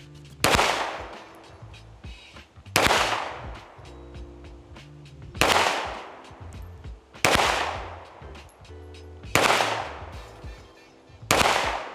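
Six 9mm pistol shots from a Glock 43X with a ported ARC Division Reactor slide, firing +P+ ammunition at a slow, even pace about two seconds apart, each shot trailing off over about a second.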